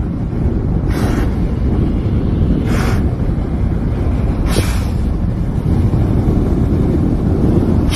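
Loud steady rumble of wind on the microphone, with a brief hiss about every two seconds.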